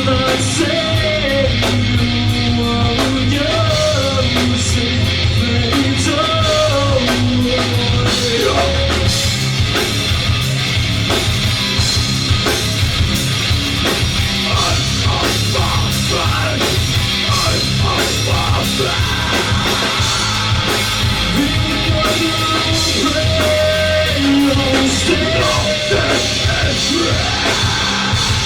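Live rock band playing: drum kit, bass and guitars at full volume, with a sung vocal melody over them.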